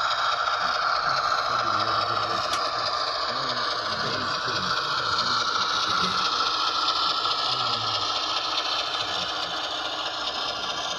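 Model Union Pacific ES44 diesel locomotive running along the track at a steady speed hauling boxcars: the steady running noise of its small electric motor, gears and wheels on the rails.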